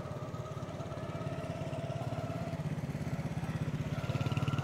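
Small motorcycle engine running with a steady, fast pulse, growing louder near the end. A thin, steady higher tone sits over it.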